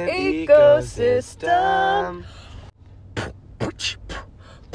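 A voice sings a few held notes for about two seconds. Then, after a brief pause, a beat of sharp, irregular percussive hits starts, roughly two or three a second.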